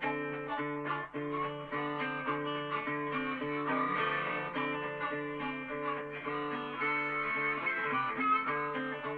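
Background music led by plucked guitar, with no singing.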